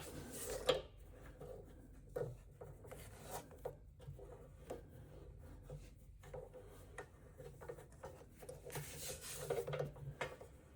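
Solenoid drain valve being threaded into the compressor tank's drain port and snugged up: faint rubbing and scraping of the fitting with scattered light clicks, a little louder about a second in and again near the end.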